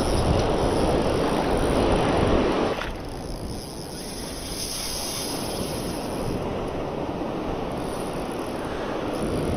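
Rushing noise of breaking surf and wind, loud at first and easing about three seconds in, then holding steady.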